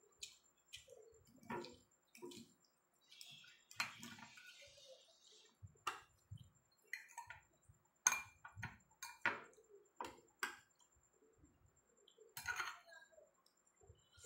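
Metal fork and spoon clinking and scraping against a ceramic plate, in irregular single clinks about a second or two apart, with a longer scrape near the end. Soft chewing and mouth sounds come in between.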